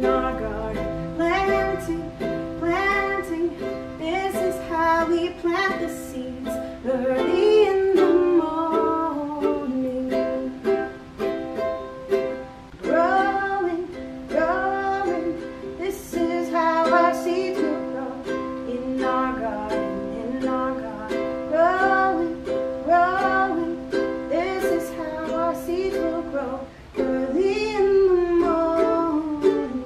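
Recorded children's action song playing: a singing voice over a plucked-string accompaniment.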